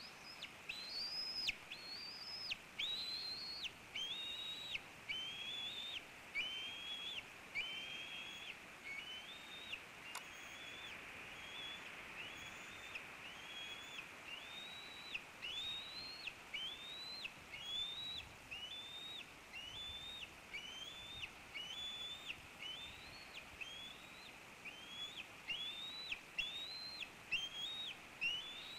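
Bald eagle nestling's food-begging calls: a steady run of thin, high, whistled peeps, about one every three-quarters of a second, each rising sharply and then held briefly.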